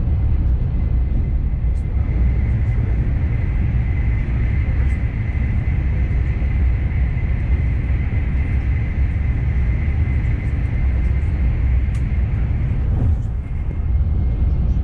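Renfe AVE Siemens S-103 high-speed train cruising at speed, heard inside a passenger coach: a steady low rumble with a faint high whine that fades out about two seconds before the end.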